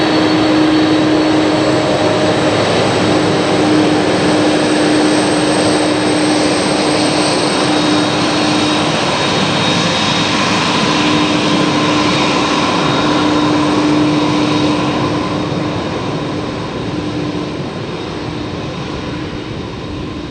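Boeing 747-400 freighter's four jet engines running as it rolls along the runway at close range: a steady engine noise with a held low hum and a high whine, fading over the last few seconds as the aircraft moves away.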